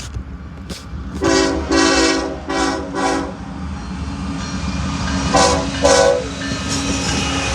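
A locomotive's five-chime air horn sounds four blasts in quick succession, then two short blasts about two seconds later. Under it runs the steady low rumble of the train.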